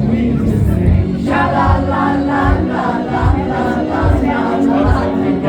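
Live band music with a steady bass-and-drum beat; singing voices come in about a second in.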